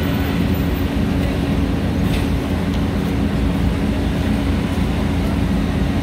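Asphalt paver's diesel engine running steadily as the machine is driven off a lowbed trailer, a low continuous drone with a steady hum.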